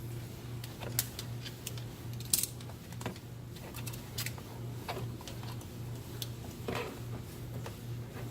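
Irregular plastic clicks and short ratcheting rattles of zip ties being threaded and pulled tight around an HID ballast, over a steady low hum.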